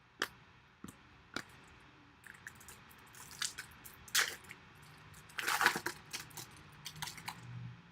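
Trading-card packs and cards being handled: a few sharp clicks, then crinkling and rustling of wrapper and cards, loudest a little before six seconds in.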